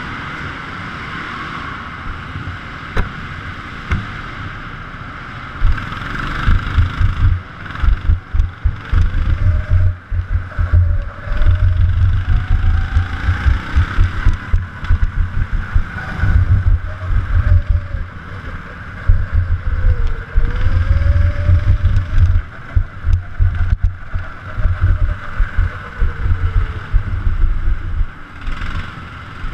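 Go-kart running at speed, its tone rising and falling with the throttle through the corners. Heavy low buffeting and rumble on the onboard camera's microphone, strongest from a few seconds in until near the end.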